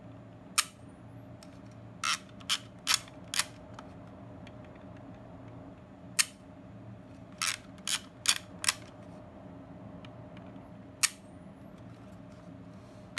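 Kodak KB-10 point-and-shoot camera being dry-fired with its back open: three sharp shutter clicks, each followed by four ratcheting clicks of the thumbwheel film advance being wound. After the first and last shutter clicks a faint high whine rises, typical of the built-in flash recharging.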